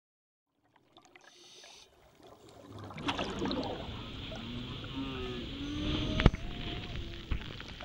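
Surf breaking over an inflatable raft, heard from a camera mounted on the raft: a rush of white water that swells sharply about three seconds in, with splashing and gurgling as the spray engulfs the camera. A sharp knock a little after six seconds in is the loudest sound.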